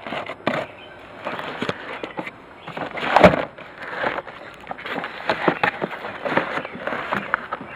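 Handling noise: rustling with scattered clicks and knocks, and one louder thump about three seconds in.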